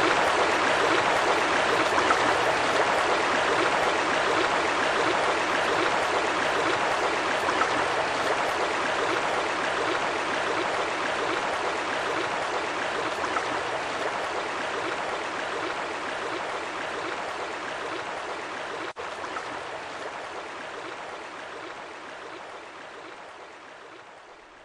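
Steady rushing water: an even hiss with no separate splashes or surges. It has a momentary break about three-quarters through and fades out slowly over the second half.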